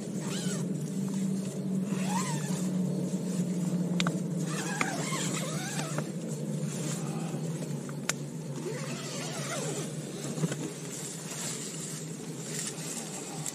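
Nylon tent fabric rustling as the tent door is handled and pulled open, with a couple of sharp clicks. A steady low hum runs underneath, and a few chirping calls come through.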